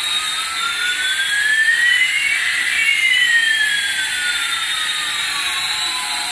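Jet-engine sound effect: a steady jet hiss with two whining tones gliding past each other, one rising and one falling, crossing about halfway through.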